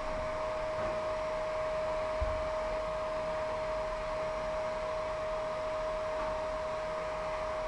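Vacuum cleaner running steadily with a constant whine. There is a soft low bump about two seconds in.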